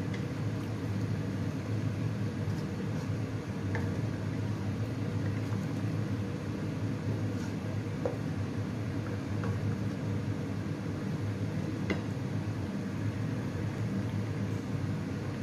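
Steady low mechanical hum of a kitchen appliance, with a few faint light taps as a wooden spatula stirs food in a metal wok.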